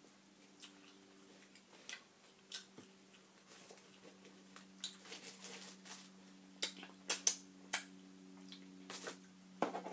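Close-up eating sounds: crusty bread being torn apart by hand and chewed, with scattered sharp mouth clicks and crumb crackles that come thicker about halfway through. A steady low hum runs underneath.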